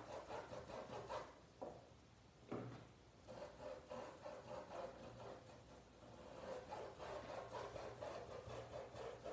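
Paintbrush bristles scrubbing paint onto cloth in quick, faint, scratchy back-and-forth strokes, pausing briefly after about a second before carrying on.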